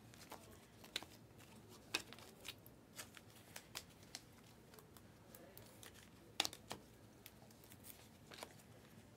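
Faint clicks and slides of a stack of Panini Select basketball trading cards being flipped through by hand, one card after another, with sharper snaps about two seconds in and twice near six and a half seconds.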